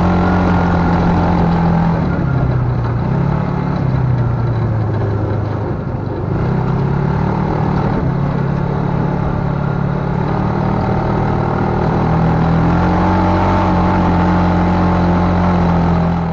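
Small off-road buggy engine running under a driver's throttle, its speed rising and falling several times.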